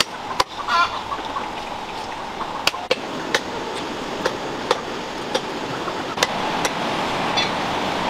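Cleaver chopping cooked duck on a stone block: sharp separate knocks every half second to a second, over the steady rush of a river. A chicken clucks briefly just under a second in.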